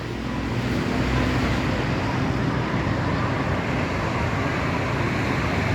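Road traffic rumble: a bus's engine and tyres running steadily as it drives past, with no horn sounding.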